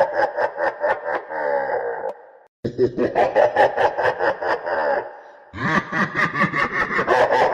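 Evil laugh sound effect: a villainous cackle of rapid ha-ha-ha pulses, repeating as a loop. One bout ends in a falling trail about two seconds in, a second runs after a short gap, and a third starts near the end.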